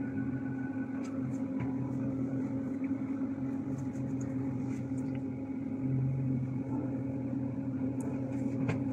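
Steady low mechanical hum, like a kitchen machine running, with a few faint clicks near the end.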